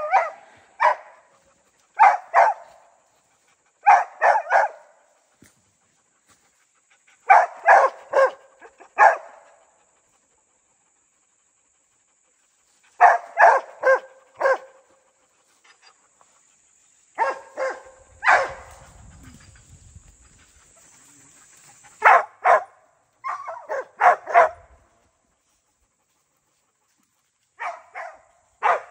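A dog barking in short runs of two to four quick barks, with pauses of one to a few seconds between the runs.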